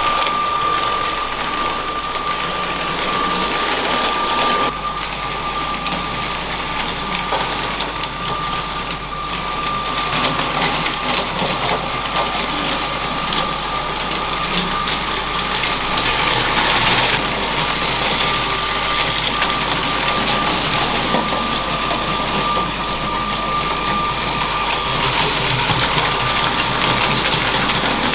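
LEGO train running on plastic track: its electric motor whines at a steady high pitch while the wheels rattle and click continuously along the track.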